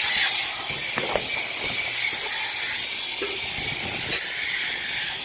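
Spray gun of a compressor-driven polyurethane coating machine hissing steadily as it sprays coating onto a styrofoam sculpture.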